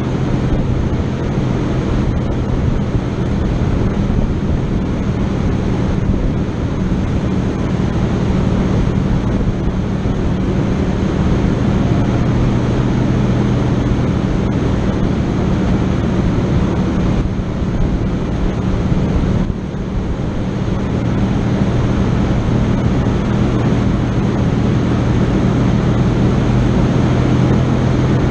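A vehicle engine running at a steady pitch under a dense, noisy rumble, dipping briefly about two-thirds of the way in.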